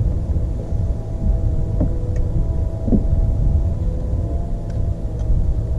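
A bass boat's motor running steadily, a constant hum of several tones over a heavy low rumble, with a few faint ticks.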